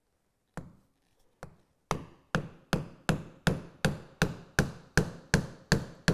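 Mallet striking a mortise chisel, chopping a mortise through a piece of wood. There are two spaced blows, then a steady run of about two and a half blows a second.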